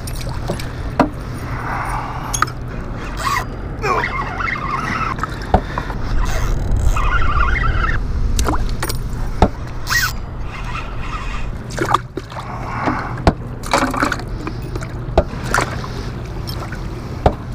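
Steady rush of water with a low hum under it, and scattered sharp knocks and clatter as a plastic cooler lid is handled and a skipjack herring is dropped in and unhooked.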